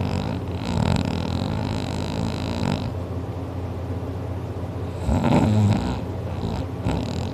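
Loud snoring in sleep: a long, noisy in-breath lasting about two seconds, then a deeper, lower snore about five seconds in.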